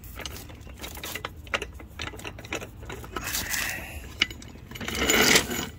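Floor jack being moved into place under the car: irregular metallic clicks and rattles, with louder scraping rushes about three seconds in and again near the end.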